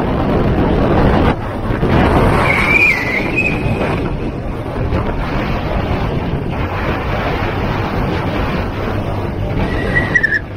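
Wind rushing over the microphone of a moving motor scooter, mixed with engine and road noise. A short wavering high tone sounds about two seconds in and again near the end.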